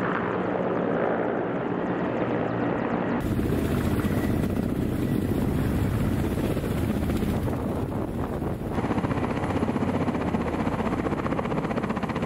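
Ka-52 attack helicopters' coaxial rotors and engines running, a steady loud rotor chop. The sound changes abruptly about three seconds in and again about nine seconds in.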